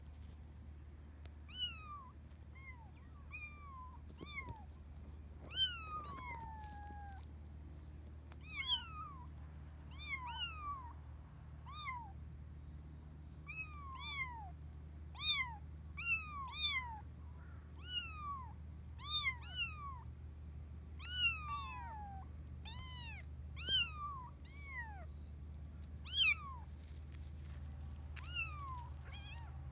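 Kitten meowing over and over: short, high-pitched calls, each falling in pitch, about one or two a second.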